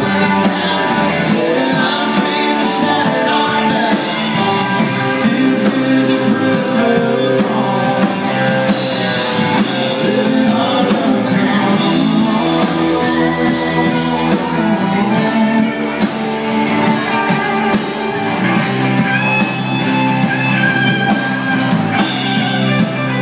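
Live country band playing loud and without a break: electric guitars, bass and drum kit, with a voice singing over the band.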